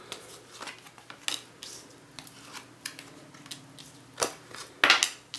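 Rider-Waite tarot cards being dealt one at a time from the deck onto a table: light clicks and brief slides of card against card and tabletop, the loudest a little after four seconds in and again about five seconds in.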